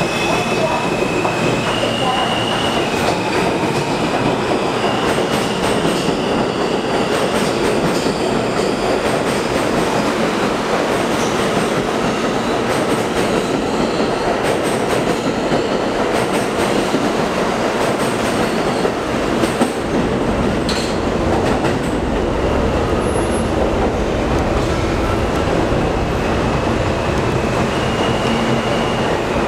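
R160 subway train pulling out of an underground station and picking up speed past the platform. The steady noise of the cars carries a high motor tone that steps up in pitch in the first few seconds, and the wheels click over rail joints as it goes.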